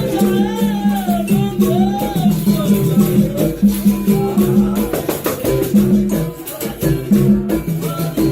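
Capoeira music: a berimbau alternating between two notes in a steady rhythm, with the caxixi shaker rattling along. A sung or gliding melodic line is heard in the first couple of seconds.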